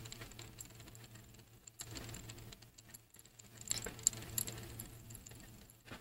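Water boiling in a glass test tube heated by an induction coil, heard close up: many irregular small pops and ticks of bubbles over a faint steady low hum.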